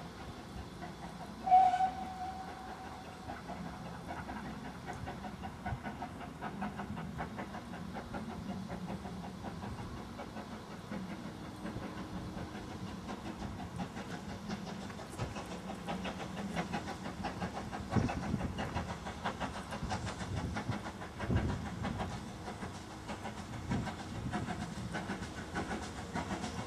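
GWR 5700 class pannier tank steam locomotive gives a short whistle about a second and a half in, then works towards the listener with a steady beat from its exhaust, growing louder in the second half.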